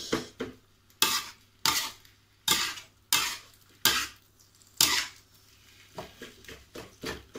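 Metal spatula scraping and knocking against a wok while stir-frying kwetiau noodles, in six sharp strokes over the first five seconds, then a few lighter ones near the end.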